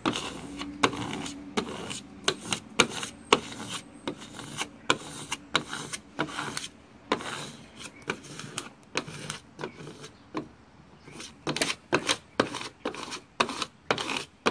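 A handheld squeegee scraping across the paper application tape of a vinyl decal on a wet car window, pushing the soapy water out from under the decal. It is a run of short rubbing strokes, a couple a second, coming quicker near the end.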